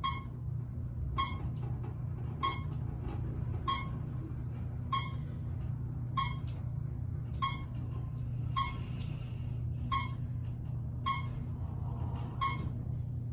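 Former Westinghouse elevator car running, a steady low hum, with a short, sharp beep repeating evenly about every second and a quarter.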